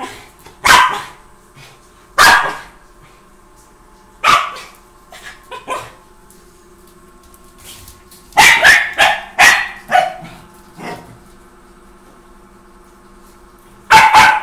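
Small white spitz-type dog giving short, sharp playful barks. They come singly every second or two at first, then in a quick run of about five, then again near the end.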